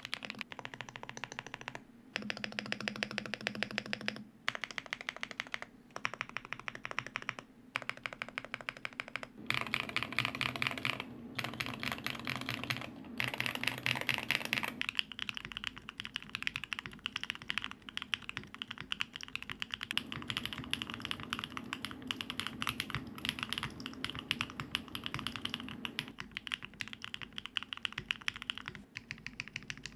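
Fast typing on custom mechanical keyboards: dense runs of key clicks broken by brief pauses, with the tone of the typing changing several times.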